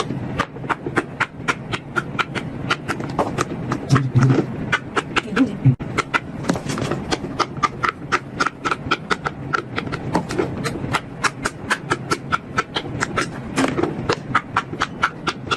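Silicone pop-it fidget toy being popped bubble by bubble as fast as possible, a quick steady run of sharp pops, several a second.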